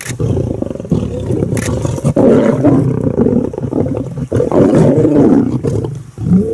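Lion growling and roaring loudly, in three long bouts.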